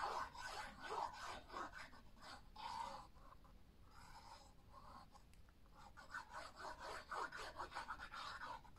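Faint, irregular scratchy rubbing of a liquid glue bottle's fine applicator tip dragged along the edges of a cardstock box as glue is spread, with light handling of the card.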